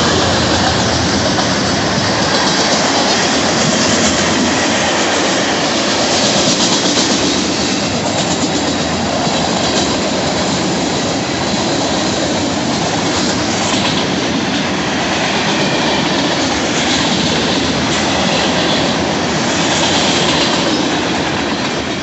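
A freight train of covered hopper cars rolling past close by: loud, steady rumble and clatter of steel wheels on the rails.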